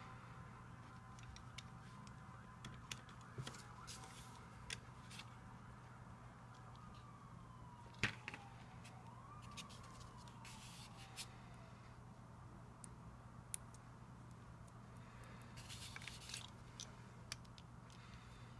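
LEGO bricks clicking and tapping as they are handled, pressed together and set on the table. There are scattered small clicks, one sharper click about eight seconds in, and a cluster of clicks near the end.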